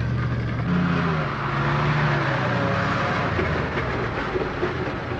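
Engine of a heavy work vehicle running steadily, its pitch shifting about a second in.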